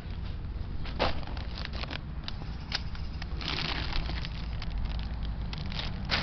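Crackling and knocking handling noise from a handheld camera being swung about, over a low steady rumble. The sharpest crackle comes about a second in, with a rougher rustle around the middle.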